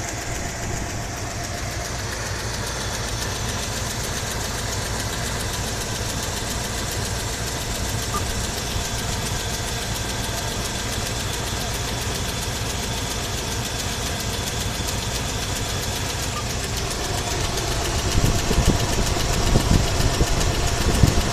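A carbureted Chevy V8 with a Holley carburetor idling steadily. Near the end a louder, uneven low buffeting rises over the idle.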